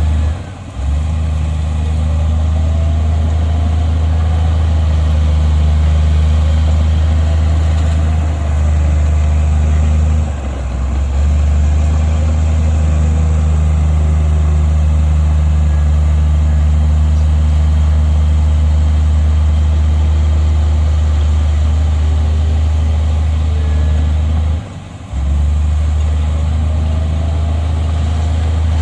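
Heavy diesel engine of a bulldozer running steadily under load, with a deep low drone that drops away briefly three times.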